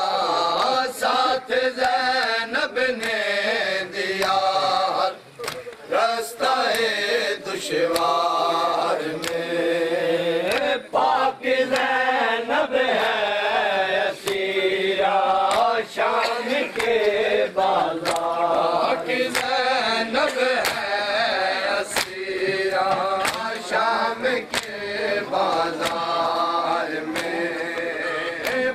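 Men chanting an Urdu noha (Shia lament), with a steady rhythm of sharp slaps from hands beating on chests (matam) in time with the chant.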